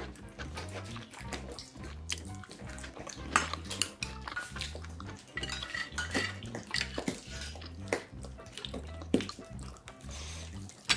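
Chopsticks clicking and tapping against metal bowls and dishes as food is picked up, in many short, irregular clicks.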